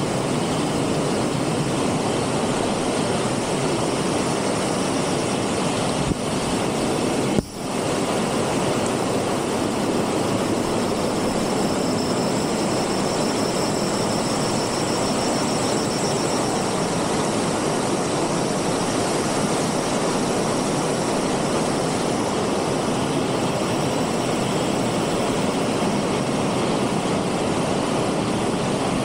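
Rushing water of a rocky mountain stream tumbling over boulders and small cascades, a steady, even rush. The sound cuts out for an instant about seven seconds in.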